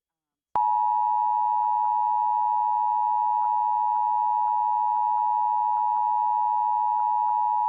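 Emergency Alert System attention signal: a steady two-tone alarm at 853 and 960 Hz, starting about half a second in, that marks an EAS alert, here a Required Monthly Test.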